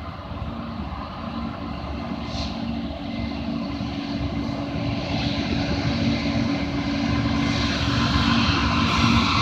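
Diesel locomotives leading a BNSF freight train approaching, their engines' steady hum growing louder as they near, with wind noise on the microphone.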